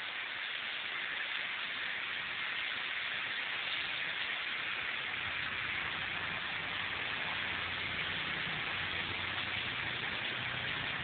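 A steady hiss, with a faint low hum coming in about halfway through.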